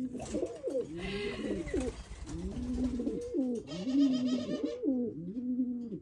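Feral pigeon cooing in a continuous run of rising-and-falling coos, which the keeper hears as angry scolding. Two short bursts of rustling, about a second in and around four seconds in.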